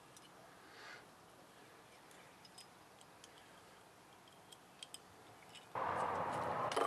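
Faint small metallic clicks and ticks as the screws and chrome lug hardware of a drum shell are worked loose and handled. Near the end a much louder rushing noise lasts about a second.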